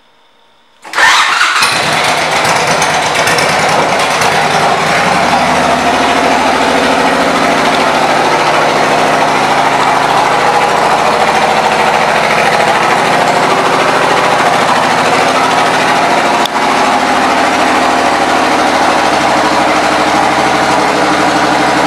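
2007 Suzuki Boulevard C90T's V-twin engine, fitted with aftermarket exhaust pipes, starting about a second in and then idling steadily.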